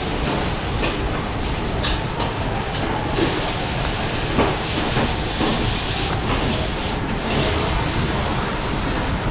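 Steady kitchen noise from a wok station, the gas burner and extraction fan running, with a few sharp metallic clinks of utensils near the middle.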